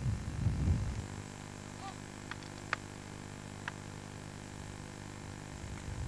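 Wind rumbling on the microphone for about a second, then a steady low hum with a few faint clicks, and the wind rumble coming back at the end.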